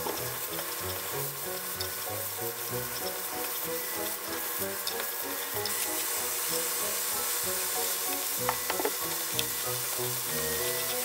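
Ground meat sizzling in a frying pan as it is stirred, the sizzle growing louder about halfway through, over background music. A few sharp clicks near the end as bean sprouts go in and are tossed.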